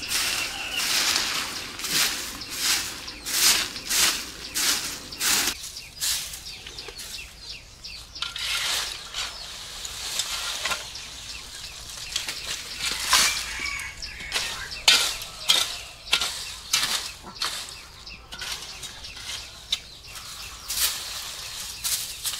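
A long-bristled broom sweeping dry leaves over bare earth, with repeated swishing strokes and rustling leaves. The strokes come quickly, about two a second, for the first few seconds, then more spread out.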